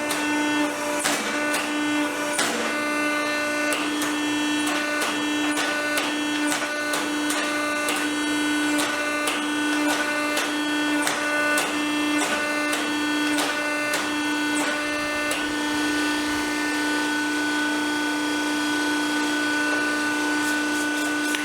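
A steady machine hum, with frequent sharp metallic knocks and clinks from working hot steel stock. The knocks stop about fifteen seconds in, leaving the hum alone.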